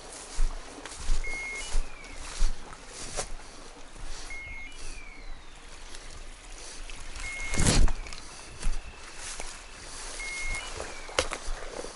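A hunting dog's beeper collar sounding a short electronic beep and a falling chirp about every three seconds, over the hunter's footsteps and rustling through dry grass and brush. One loud scrape comes a little before eight seconds in.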